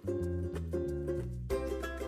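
Background music: quick plucked-string notes over a bass line that comes in at the start.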